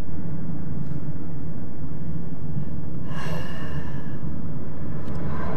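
Steady low engine and road rumble inside a moving car's cabin, with a brief breathy sound, like a sigh, about three seconds in.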